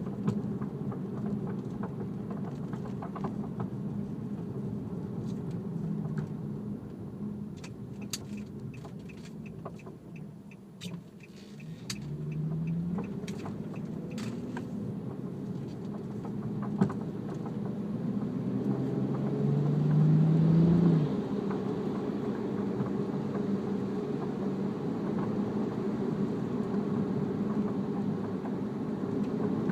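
Infiniti G37X sedan being driven, heard from inside: steady engine and road rumble with the engine revving up twice, a short run of even ticks, and scattered sharp knocks and clunks. The clunking is the noise the owner has heard from the car since BC Racing coilovers were installed.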